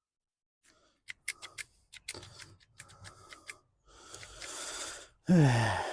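Hand-held litter-picker grabber clicking repeatedly and rustling through debris, then near the end a sudden loud moment with a falling groan as the grabber snaps.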